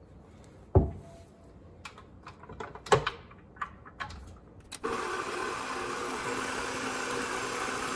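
A few knocks and clinks on the counter, then about five seconds in a KitchenAid bowl-lift stand mixer switches on and runs steadily, its flat beater mixing flour into cookie dough.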